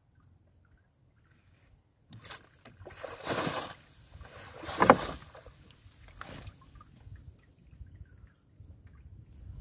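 Wet fishing net being hauled up out of the sea over the side of a small boat: a run of splashes and sloshing of water and mesh starting about two seconds in, the loudest about five seconds in.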